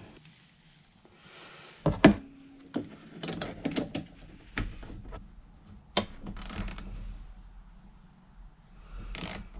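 A wrench on small 8 mm nuts holding the air box to a mini bike's carburetor: scattered clicks and knocks of metal tool on nut and housing, with short scraping bursts, the loudest click about two seconds in, as the nuts are tightened.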